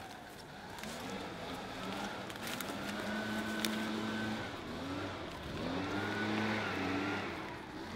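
A motor engine running, its pitch rising, holding and falling several times.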